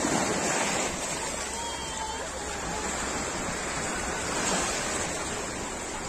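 Sea waves breaking and washing up onto a sandy beach, a steady rushing hiss.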